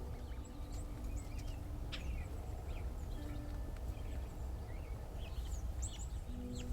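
Small songbirds chirping and twittering in scattered short calls over a steady low outdoor rumble. Faint held tones, like soft background music, come and go underneath.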